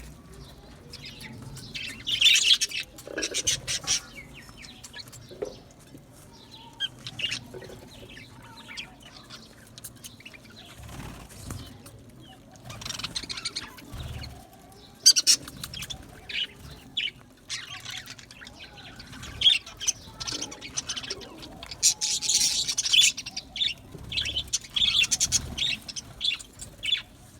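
Budgerigars chirping in irregular, high-pitched bursts, some clusters louder than others.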